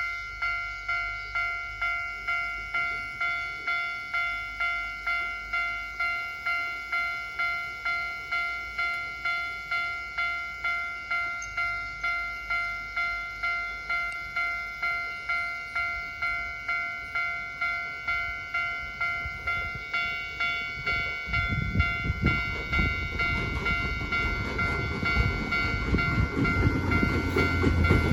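Japanese level-crossing warning bell, an electronic bell of an unusual variant tone that sounds close to the standard one, dinging in a steady even rhythm. About 21 seconds in, a train arrives and runs over the crossing with a rumble and wheel clatter while the bell keeps ringing.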